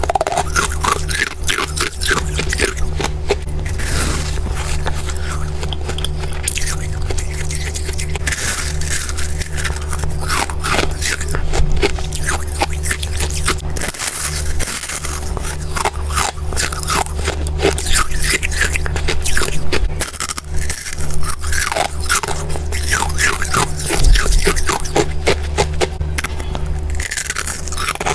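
Close-up biting and chewing of powdery freezer frost: dense, rapid crunching and scraping, over a steady low hum.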